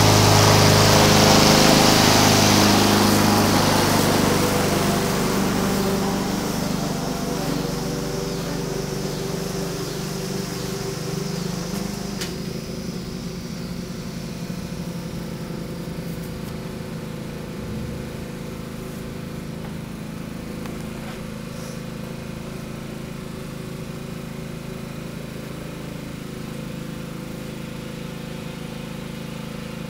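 Walk-behind lawn mower engine running steadily while mowing, loud as it passes close at the start, then fading over the first ten seconds or so as it moves away, and holding steady at a distance after that.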